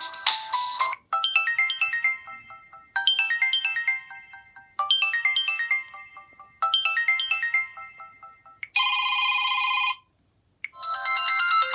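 Samsung Galaxy S Blaze 4G preset ringtones and notification tones playing one after another. The end of one tone gives way to a short descending chime phrase repeated four times, then a buzzy steady tone of about a second, a brief silence, and another melodic tone beginning near the end.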